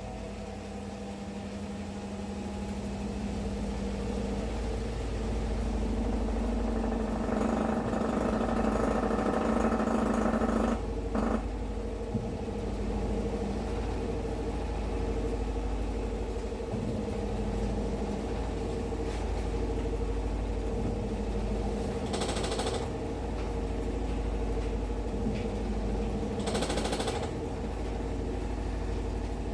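Toshiba washing machine running with an abnormal noise: a steady mechanical drone with a low rumble and hum that grows louder over the first ten seconds, then holds, with two short louder rasping bursts later on. The noise is the sign of a fault in the machine.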